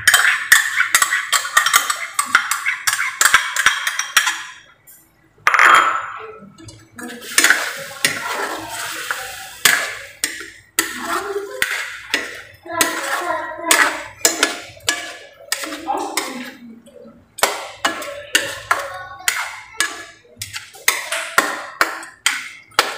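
Metal ladle stirring chicken in a large stainless steel wok, knocking and scraping against the pan many times.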